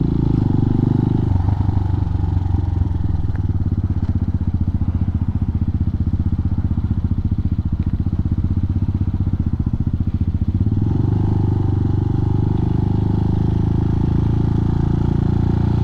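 RPS Hawk 250's single-cylinder four-stroke engine running steadily as the bike is ridden, heard from the rider's helmet mic. The note is lighter for most of the stretch and grows fuller again about two-thirds of the way through.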